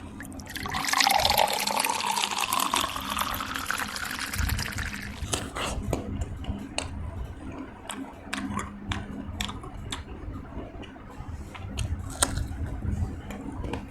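Liquid poured into a container for about five seconds, with a pitch that rises steadily as it fills. After that come scattered sharp clicks and taps.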